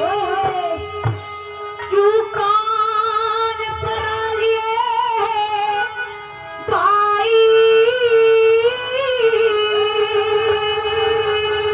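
A woman singing a Haryanvi ragni into a microphone, a wavering melody with vibrato over a steady held instrumental drone and accompaniment. The voice breaks off briefly about six seconds in, then comes back louder.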